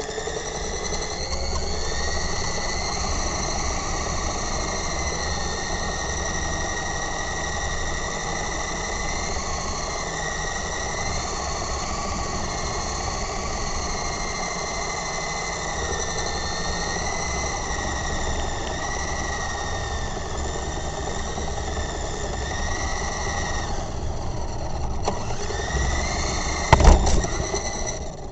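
Radio-controlled helicopter in flight: a steady high motor whine that wavers slightly in pitch, over the low rumble of rotor wash on the onboard microphone. About 27 seconds in there is a sharp knock and rattle as it comes down on the ground.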